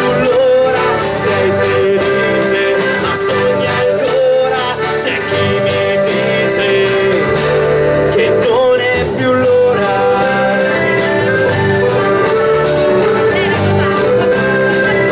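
Live folk band playing: a piano accordion carries sustained melody notes over strummed acoustic guitar and electric bass, at a steady, full level.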